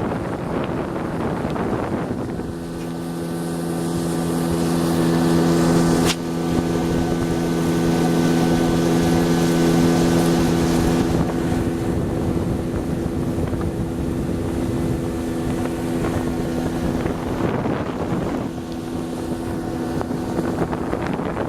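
Hidea 9.9 outboard motor running at a steady speed while being broken in, over wind buffeting the microphone. Its steady tone comes up about two seconds in, grows louder, and fades near the end, with a single sharp click about six seconds in.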